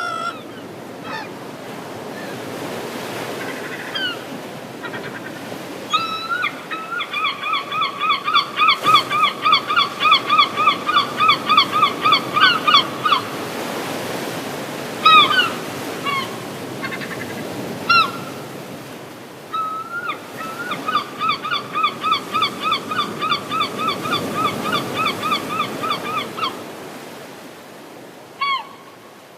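Gulls calling: two long runs of rapid laughing calls, about four a second and each lasting several seconds, with single calls scattered between them, over the steady wash of waves.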